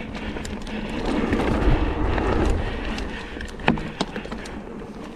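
Mountain bike riding fast over dirt singletrack, heard from the bike: wind rushing over the microphone with tyre and drivetrain rattle. A deeper rumble swells about one to two and a half seconds in, and two sharp clacks come near four seconds in.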